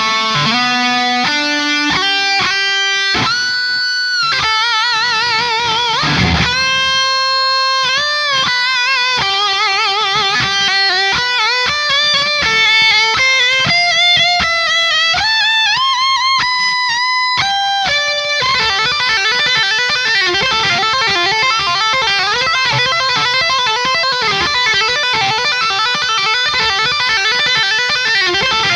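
Electric guitar through a Cameron CCV (original version) high-gain amp head, playing a distorted lead: quick single-note runs and held notes with wide vibrato and bends, then about two-thirds in a dense stream of rapid notes.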